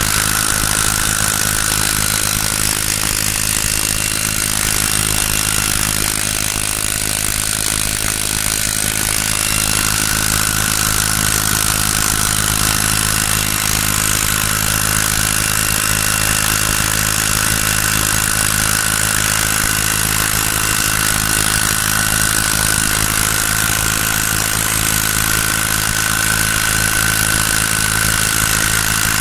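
Small brush-cutter engine rigged as a boat motor, running steadily at constant speed, with a steady high whine over its drone.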